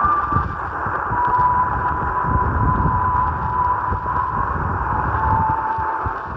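Xhdata D-808 shortwave receiver tuned to a weak 90-metre tropical-band station, giving a dense hiss of static with low crackles and a steady heterodyne whistle that drops in pitch twice.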